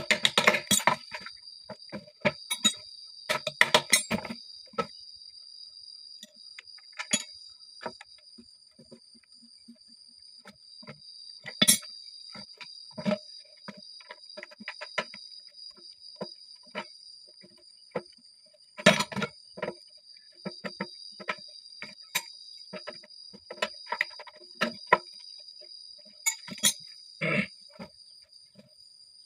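Scattered clinks, taps and knocks of hand tools and bolts on the metal and PVC parts of a hydraulic ram pump's swing waste valve as it is put back together, with a few sharper knocks among them. A steady high insect buzz carries on behind.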